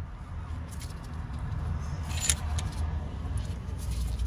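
Screw-type brake caliper piston compression tool being wound by hand, with light metallic clicks and scraping as the piston is pushed back into the caliper, and a sharp click about two seconds in. A low steady rumble runs underneath.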